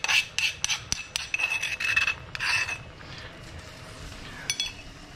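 Metal spoon scraping garlic paste out of a stone mortar in quick, repeated rasping strokes that stop about three seconds in. Butter sizzles faintly in the wok afterwards.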